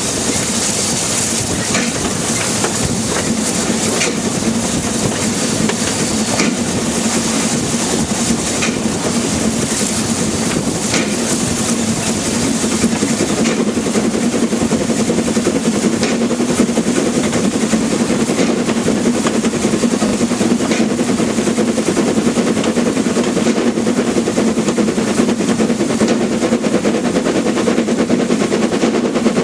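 Narrow-gauge steam locomotive No. 101 of the Selfkantbahn running under steam: rapid, even exhaust beats over the clatter of the train, with a steady low hum underneath. It grows slightly louder about halfway.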